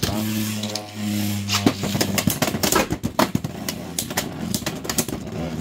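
Two Beyblade X spinning tops whirring in a plastic stadium, with a steady hum for the first two seconds. Many sharp plastic clacks follow as the tops strike each other and the stadium wall.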